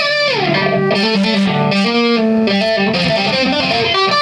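Electric guitar playing a lead line: one note slides down in pitch near the start, followed by a run of changing single notes.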